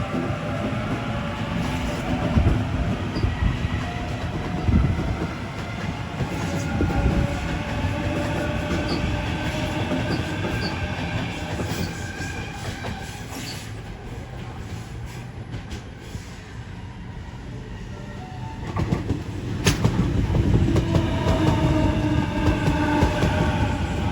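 Electric double-deck suburban passenger trains running through the station: traction motors whine in several gliding tones over wheel rumble and rail clatter. The noise eases off a little past the middle, then swells again from about three-quarters of the way through with a fresh rising motor whine.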